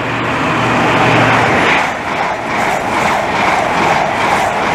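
InterCity 225 express, a Class 91 electric locomotive with Mark 4 coaches, passing through the station at speed without stopping. It makes a loud rush of wheel and air noise with a low hum in the first second or so, then a quick rhythmic clatter of wheels over the rails.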